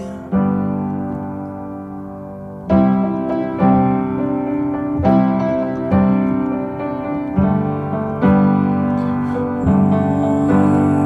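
Background music: an instrumental piano passage of chords struck about once a second, each ringing out and fading, with no singing.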